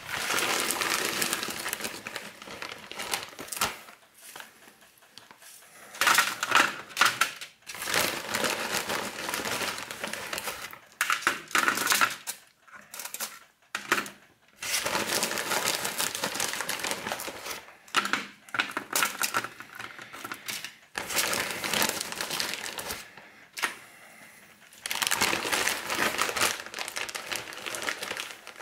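Frozen mixed vegetable pieces being dropped and set by hand onto a foil-lined baking tray: crinkling of aluminium foil and light clattering of hard frozen pieces, coming in irregular bursts with short pauses between handfuls.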